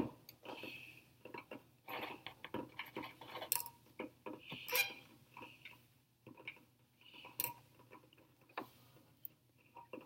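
Faint, irregular clicks and ticks over a low steady hum.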